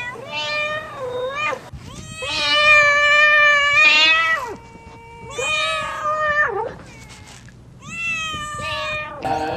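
Domestic cat meowing: four drawn-out meows with gaps between them, the longest and loudest one in the middle.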